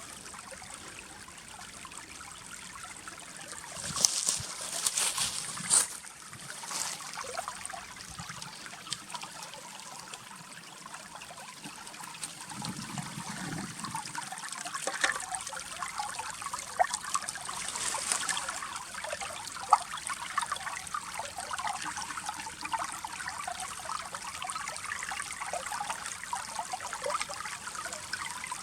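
Shallow river water trickling and babbling through ice, a steady gurgle with many small ticks. Louder bursts of rushing water come about four to six seconds in and again around eighteen seconds.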